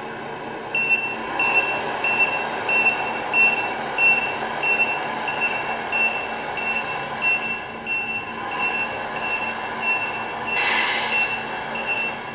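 Reversing beeper of a Tamiya MFC-03 model-truck sound unit, beeping steadily about three times every two seconds over the unit's simulated diesel engine sound as the RC Scania backs up. A short air-brake hiss comes near the end.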